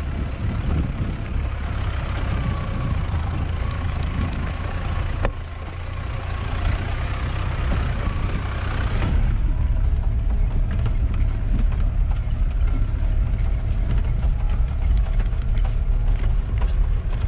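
Car driving on a rough unpaved road: a steady low engine and road rumble with a rushing road noise over it. A sharp knock comes about five seconds in. About nine seconds in the rushing noise eases off, leaving the rumble with small rattles and clicks.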